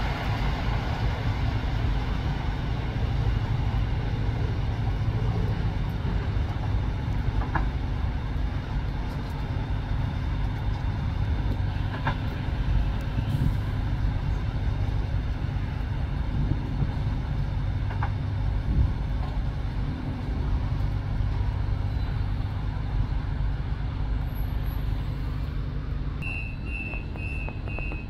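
Electric multiple-unit train pulling out of the platform: a steady low rumble with an occasional faint click from the wheels on the rails. A run of short, quick high beeps comes near the end.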